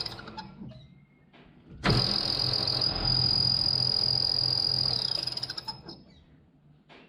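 Metal lathe cutting a chamfer on a hydraulic fitting's hex: machine noise with a steady high-pitched whine. It trails off in the first second, starts again suddenly about two seconds in, and fades out around six seconds.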